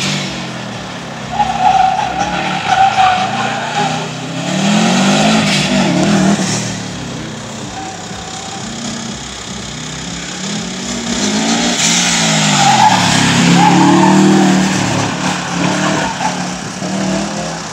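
Subaru Impreza STI's turbocharged flat-four engine revving hard, its pitch rising and falling again and again as the car is driven flat out through tight turns. The tyres squeal about a second and a half in and again briefly around the middle.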